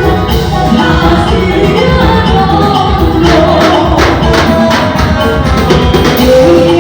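Loud band music played through a sound system, with a steady beat.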